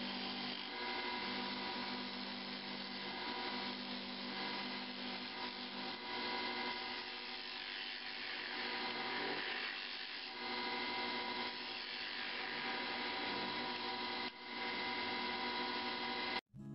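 Wood lathe running steadily with a motor hum, a hand-held turning tool scraping and cutting into the end face of a spinning Honduran mahogany plug blank. The sound cuts off abruptly at the very end.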